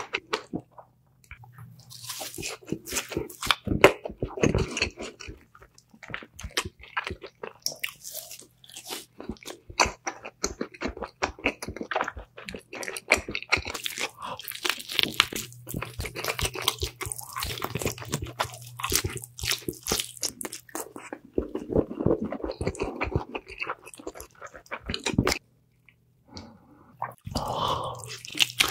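Close-miked eating of spicy chicken: crisp bites and crunching with wet chewing, in quick irregular crackles. The sound breaks off briefly near the end and then resumes.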